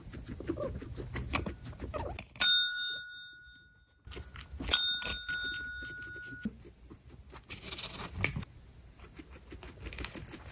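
Service bell struck twice, about two seconds apart, each ding ringing on and fading, the second ringing longer; a guinea pig presses it to ask for food. Soft rustling and light clicks of the animal moving on its bedding sound around the rings.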